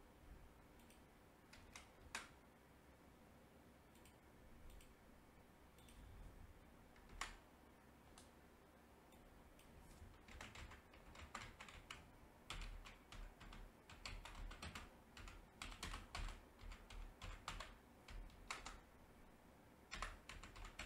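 Faint computer keyboard typing: a few isolated clicks at first, then a steady run of keystrokes from about halfway through.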